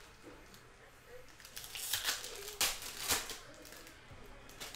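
Trading card pack wrapper crinkling as it is torn open by hand, in a few sharp crackles about two to three seconds in.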